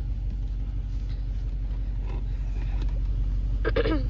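Steady low rumble of an idling car engine, with a brief voice near the end.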